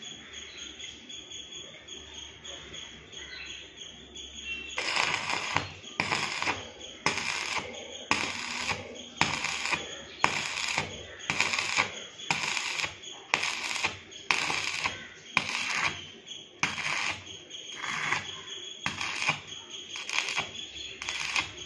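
Stick (rod electrode) arc welding on steel flat bar: the arc strikes about five seconds in and crackles and sputters in pulses about once a second as the rod is worked along the joint.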